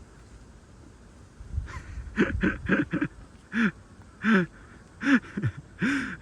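A person's short wordless vocal sounds: a quick run of four, then about five more spaced out, each rising and falling in pitch.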